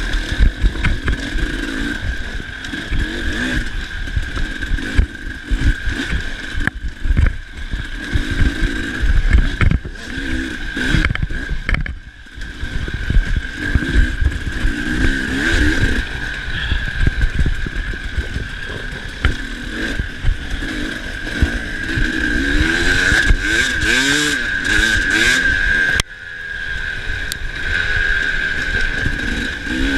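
KTM 300 two-stroke enduro motorcycle engine revving up and down while being ridden over a rough dirt trail, with the bike clattering over bumps and wind buffeting the microphone.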